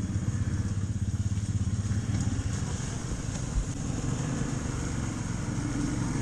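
Small off-road engine idling and running steadily with a low, rapid pulsing note, with one short knock about halfway through.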